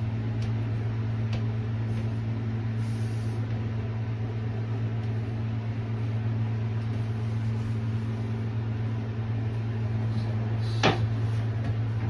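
Steady low electrical hum, like a small motor or fan running, with a couple of faint ticks early on and one sharp knock about a second before the end.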